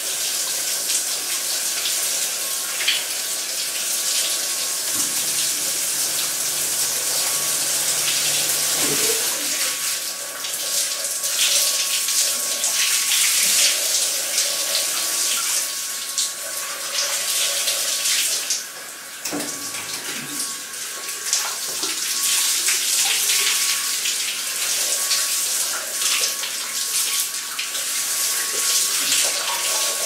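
Shower water spraying onto a person and the tiled floor of a motorized body-washing column, the hiss rising and dipping as he moves under it, with a thin steady whine from the spinning brush head running underneath.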